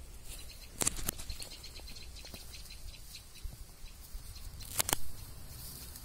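Footsteps rustling through forest undergrowth, a light crackle throughout, with two pairs of sharp cracks, one about a second in and one near the end.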